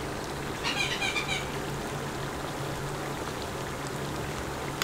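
Onions and whole spices frying in hot oil in a large metal kadai, a steady sizzling hiss. A brief cluster of high chirping calls comes about a second in.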